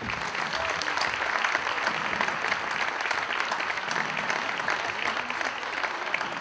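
Audience applauding: dense steady clapping that swells in the first second and then holds.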